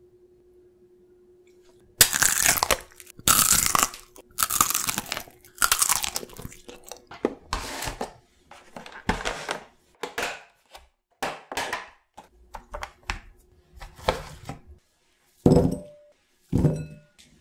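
Crisp plastic crackling in a dozen or so short bursts, growing sparser, as a clear plastic clamshell of cherry tomatoes is handled and opened. Near the end come two dull knocks with a short ring as tomatoes drop into a glass bowl.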